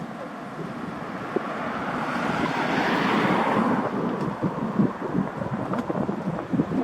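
Wind buffeting the microphone, with a rushing hiss that swells to a peak about three seconds in and then fades.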